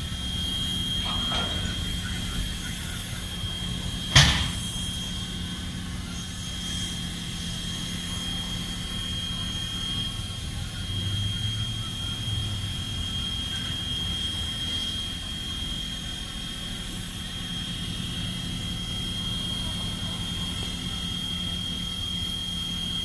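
Strasburg Rail Road No. 89, a 2-6-0 steam locomotive, standing while it takes on water: a steady hum and hiss with a high, steady whine over it. A single sharp clank comes about four seconds in.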